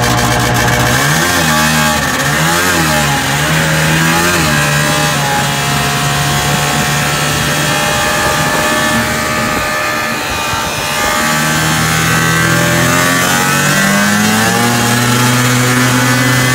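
John Deere Liquidator 340 clone snowmobile's two-stroke engine revving: three quick throttle blips at the start, then pulling steadily as the sled rides off, easing briefly about ten seconds in and climbing in pitch again near the end.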